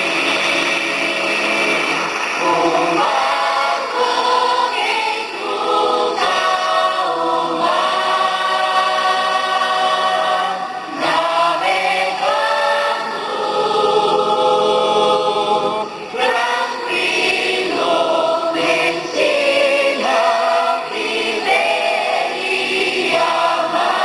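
Large youth choir of mostly girls' voices singing together, holding long sustained notes in phrases with short breaks between them.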